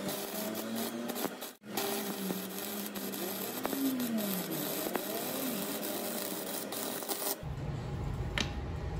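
Stick-welding arc crackling and hissing as an electrode runs a bead along a steel sheet seam, with a brief break about a second and a half in. The arc stops a little after seven seconds, leaving a low rumble.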